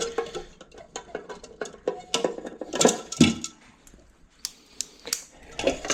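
Small metal clicks, clinks and rattles of a toilet's flush handle lever and lift chain being worked by hand inside the tank. It comes in irregular taps, with a louder knock about three seconds in.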